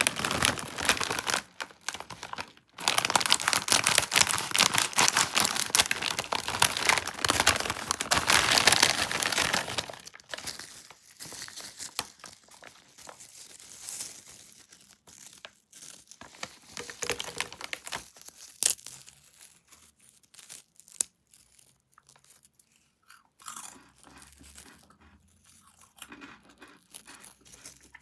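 Crackling and crunching of a snack package being handled and opened. The crackling is dense and loud for about the first ten seconds, then turns to sparser, quieter crackles and clicks.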